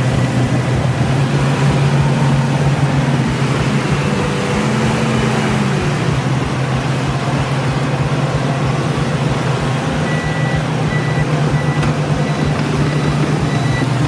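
Heavy diesel machinery engine running steadily with a deep hum. From about ten seconds in, a reversing alarm starts beeping repeatedly.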